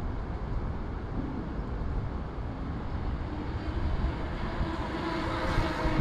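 Steady low rumble of road traffic on the bridge overhead, with one vehicle growing louder near the end.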